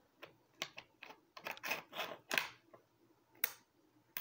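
Steel bolt of a Savage Axis bolt-action rifle clicking and scraping against the receiver as it is handled and worked in the action: a quick run of light clicks and rattles, then a single sharper metallic click about three and a half seconds in.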